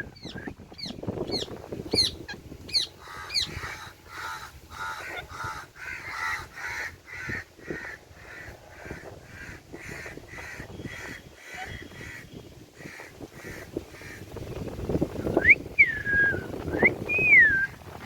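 Ringneck parakeet calling: a quick run of sharp chirps first, then a long even series of short calls at about two a second, and a few loud swooping calls near the end.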